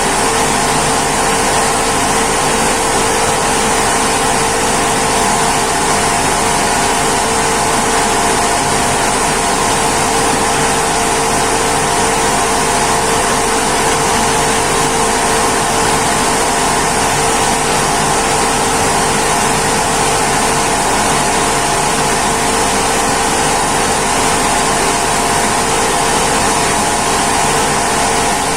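Rice mill machinery running steadily under load: a loud, even mechanical hum with a constant hiss and no change in speed.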